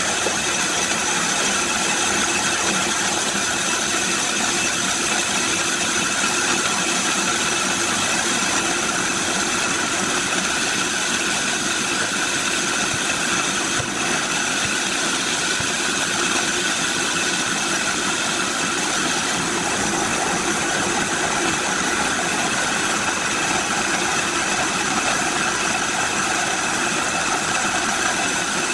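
Bandsaw running steadily while a short log is pushed through its blade and sawn.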